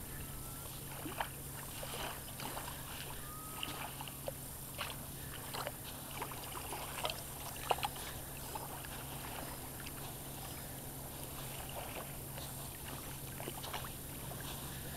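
Small dogs running and splashing at the water's edge of a sandy beach: scattered short splashes and patters, most of them in the first half, over a steady low hum.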